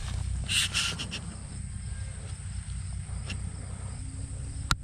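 Outdoor field ambience: a steady low rumble of wind on the microphone, with a brief rustle of leaves and stems about half a second in and a sharp click near the end.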